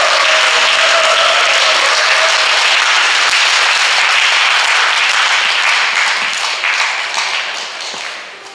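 Audience applauding at the end of a song, the clapping thinning and fading out over the last two seconds or so.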